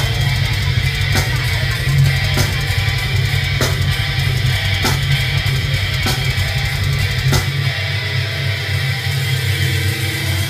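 Heavy metal band playing: distorted guitars over drums, with a sharp hit about every second and a bit. About seven seconds in, the deepest low end drops out while the guitars carry on.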